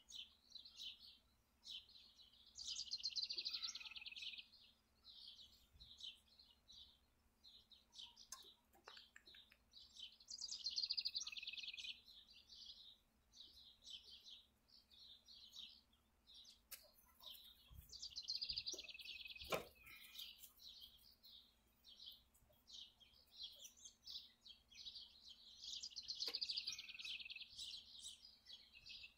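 Songbirds singing, with a louder song phrase coming back about every eight seconds over steady chirping. A few faint clicks and one sharp knock about two-thirds of the way through come from hand work on the riding mower's engine.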